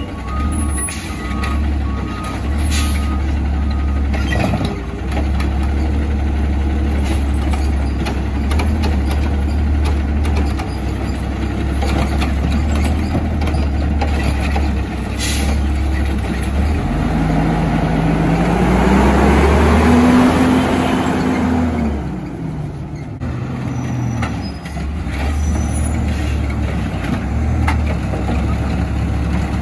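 Garbage truck engine running steadily, then revving up for several seconds past the middle and dropping back to idle, with a few short hisses.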